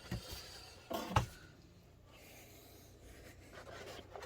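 Cardboard packaging of a microphone box being opened and handled: two short rubbing scrapes in the first second and a half, then faint room tone.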